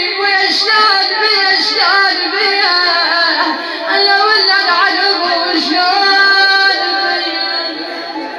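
A woman's voice chanting a naʿi, the Shia mourning lament, holding long high notes with wavering, bending ornaments; it eases off near the end.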